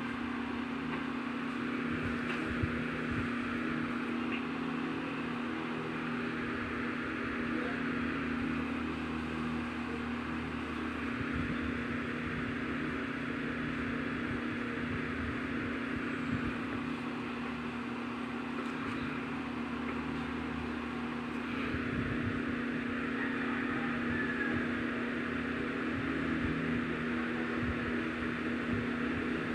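Steady hum of a small motor with a constant low tone and an even airy hiss, unchanging throughout.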